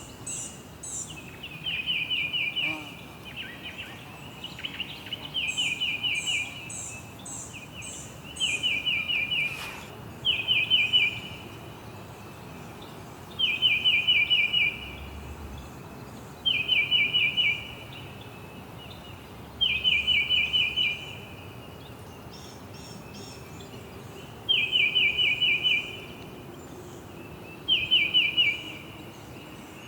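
Songbird singing a short, fast trill over and over, about every three seconds, with high thin chirps in some of the phrases, over a steady hiss of background noise.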